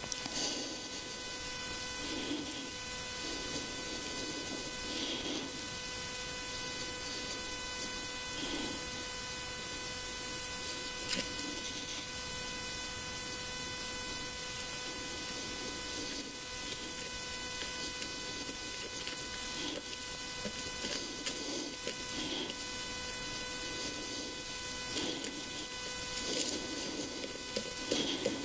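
Steady electrical hum with a thin high whine over a faint hiss: interference picked up by the recording gear, with soft faint noises coming and going every few seconds underneath.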